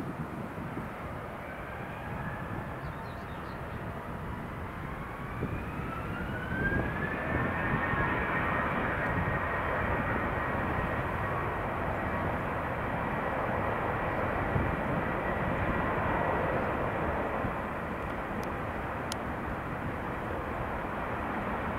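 Airbus A321 jet engines spooling up: a whine rises in pitch over a few seconds, then holds steady as the engine noise grows louder.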